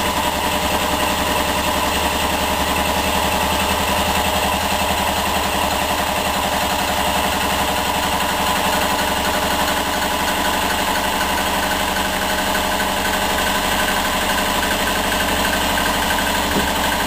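Pressurized rhombic-drive Stirling engine running steadily with a rapid, even mechanical beat, driving its generator under an electrical load of lamps.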